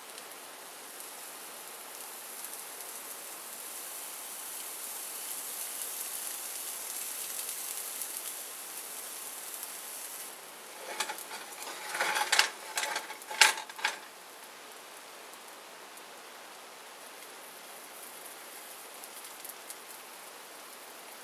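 Pancake batter sizzling softly and steadily in a hot nonstick frying pan. A little past halfway there is a quick cluster of sharp clicks and taps, after which the sizzle carries on more quietly.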